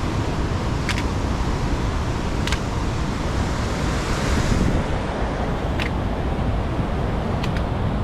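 Wind buffeting the microphone: a steady rushing noise that swells briefly about four seconds in. A few short sharp ticks sound at irregular intervals over it.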